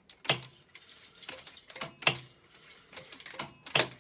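Otari MX-5050 reel-to-reel tape recorder's transport: three sharp clunks as the transport buttons are pressed, about a third of a second in, near the middle and near the end. Between the clunks there is a hissing whir of tape winding on the spinning reels as it is shuttled back for playback.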